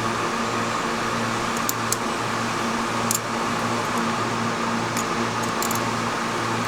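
Steady running hum of a generator, with a low throb that swells and fades about once a second. A few brief faint clicks come over it, from small Ethernet cable wires being handled and trimmed.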